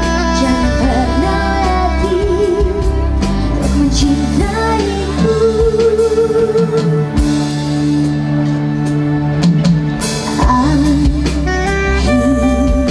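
Live band music: a man and a woman singing a duet with vibrato, over keyboard, soprano saxophone and drums.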